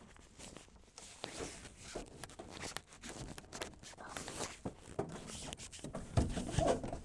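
Scattered light knocks, scrapes and shuffling as a Contoure RV-500-OTR over-the-range microwave is lifted at an angle and worked into the notches of its mounting plate under a cabinet, a little louder near the end.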